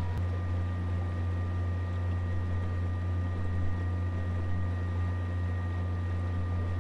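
Boat's outboard motor running at a steady speed: a low, even hum with a faint high whine over it. A single click sounds just after the start.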